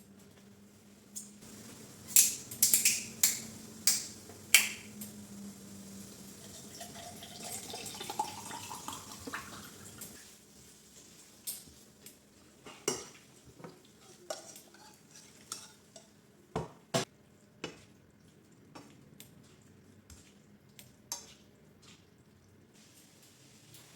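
Kitchen dishes and cutlery clinking and knocking, with a cluster of loud clatters about two to five seconds in, then scattered single knocks. Around the middle a tone rises steadily in pitch.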